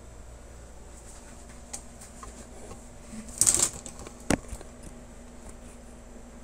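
Handling noise on a workbench: a short scraping rustle about three and a half seconds in, then a single sharp knock, with a few faint ticks over a steady low hum.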